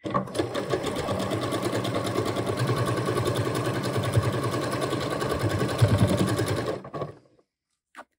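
Domestic sewing machine stitching steadily at speed through layers of fabric and stretched elastic, a fast even rhythm of needle strokes that stops about seven seconds in. A single small click follows near the end.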